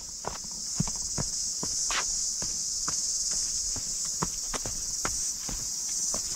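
Running footsteps on a dirt trail, about two and a half strides a second, over a steady high-pitched insect chorus from the scrub.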